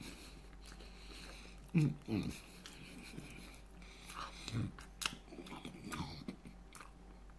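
A man chewing fried chicken with his mouth near the microphone: soft chewing and lip-smacking clicks, with a couple of brief sounds from his voice about two seconds in.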